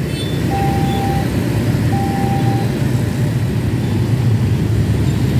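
Road traffic of motorcycles and a minibus driving over a railroad level crossing: a steady mix of small engines running. Two short beeps at one steady pitch sound in the first few seconds.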